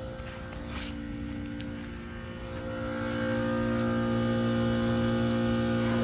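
Air-conditioning condensing unit running, a steady electrical hum with several fixed tones that grows a little louder about halfway through, when a faint higher whine joins it.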